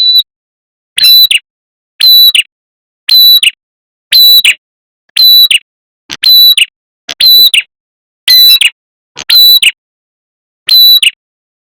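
Looped lure recording of a prenjak kepala merah songbird calling: a loud, short, high chirped phrase about once a second, each one ending with a quick downward hook.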